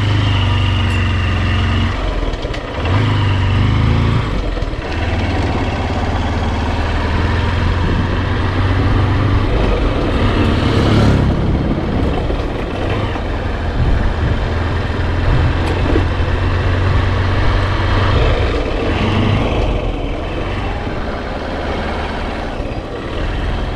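Motorcycle engine running steadily while riding along a road, with a haze of road and wind noise over it; the engine note drops briefly about two and four seconds in.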